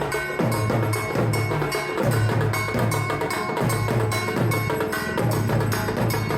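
Dhak, the large Bengali barrel drum, played in fast, continuous festival rhythm. Deep beats drop in pitch under rapid crisp stick strokes, and a high metallic ring recurs over the drumming.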